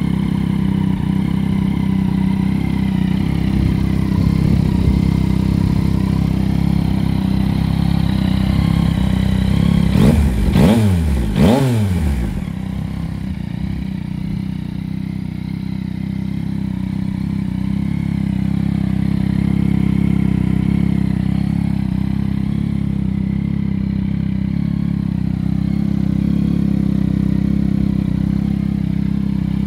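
Yamaha Tracer 9 GT's 890 cc inline three-cylinder engine idling steadily, with two quick throttle blips about a third of the way in, the revs rising and falling back each time.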